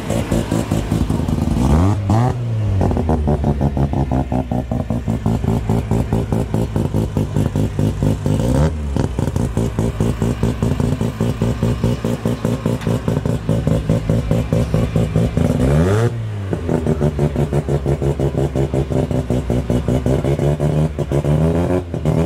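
A Mazda RX-7's engine idling with a fast, lumpy, regular pulse, blipped briefly twice: once about two seconds in and again near sixteen seconds.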